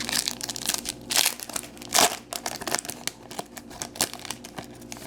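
Foil trading-card pack wrapper crinkling and being torn open, a run of sharp crackles and rustles, loudest about two seconds in.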